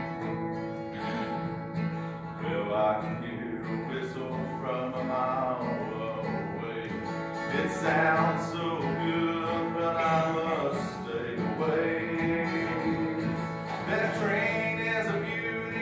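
A man singing a country song while strumming an acoustic guitar.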